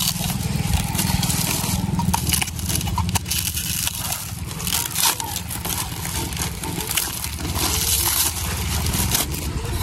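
Clear plastic wrapping crinkling and crackling as it is torn and peeled off a small wooden box by hand, a quick run of short crackles, over a steady low rumble.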